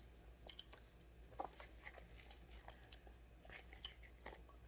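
Near silence: room tone with a low hum and a scattering of faint clicks and taps.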